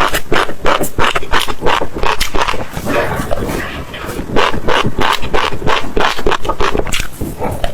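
Close-miked chewing of crunchy seeds: crisp crunches and crackles come several times a second, easing briefly about four seconds in before picking up again.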